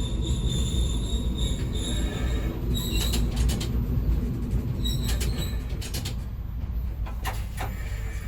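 Ex-JNR KiHa 205 diesel railcar running with a steady low rumble, its wheels squealing on the rails in short high squeals about three, five and seven seconds in.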